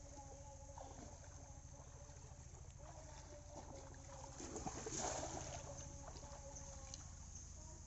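A cast net thrown over pond water, landing with a brief splash about five seconds in, the loudest moment; before it, faint sloshing of water. A faint steady low hum runs underneath.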